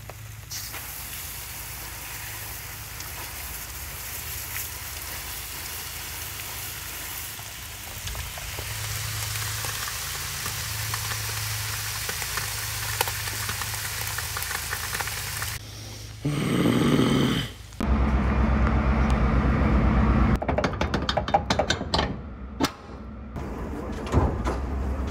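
Garden hose spraying water onto the overheated hydraulic hoses and fittings of a John Deere 5300 tractor, a steady hiss over a low hum, to cool the hydraulics down. About sixteen seconds in this gives way to a louder low engine rumble and a run of clicks.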